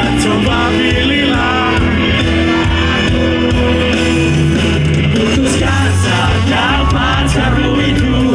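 Loud live pop-rock band music: electric guitar, bass and drums, with some voices singing along over the playing.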